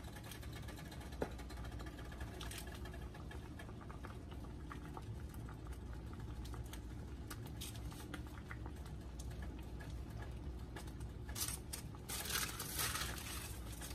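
Faint kitchen handling noises: scattered light clicks and taps over a low steady hum, with a louder, busier stretch of taps and scraping about twelve seconds in.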